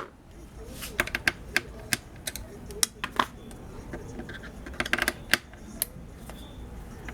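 Irregular sharp clicks and taps of a plastic casing being handled as the cover is taken off an electric air-mattress pump, bunched in quick runs about a second in and around five seconds in.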